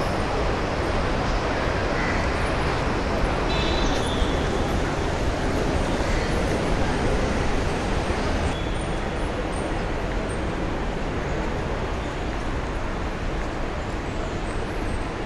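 Steady background din of traffic and people around a busy airport terminal forecourt, an even rush of noise with no single sound standing out. Brief high-pitched tones come through about four seconds in and again near eight seconds.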